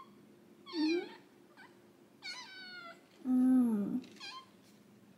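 Domestic cat meowing four or five times. The longest and loudest call comes a little past the middle and slides down in pitch.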